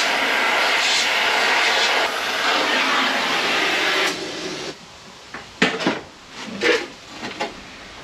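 Gas torch flame hissing steadily while heating steel to bend it, shutting off about four and a half seconds in. It is followed by a few sharp metal clanks and knocks.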